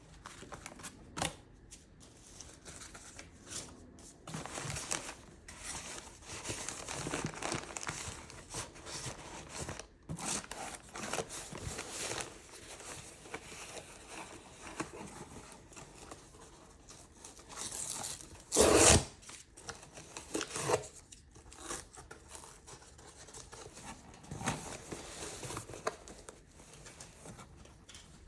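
Packing an order: paper and plastic packaging rustling and crinkling by hand, with a loud, short tearing sound about two-thirds of the way through.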